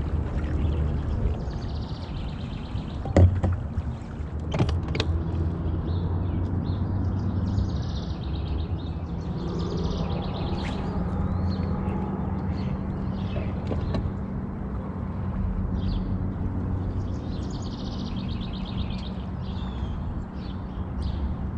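Electric bow-mount trolling motor humming steadily under songbirds chirping. A sharp knock about three seconds in.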